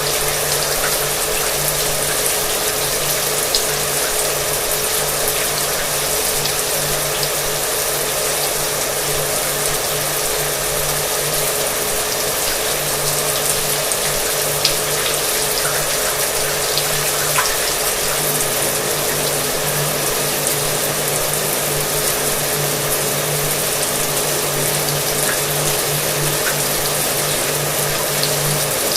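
Shower water running steadily with a hair dryer blowing underneath: an even hiss over a steady low motor hum.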